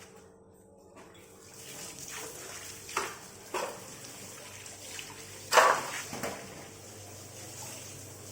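Water running and splashing over an audio mixer as it is washed to cure its crackling controls. The steady hiss of water starts a second or so in, with three sudden louder splashes, the loudest about five and a half seconds in.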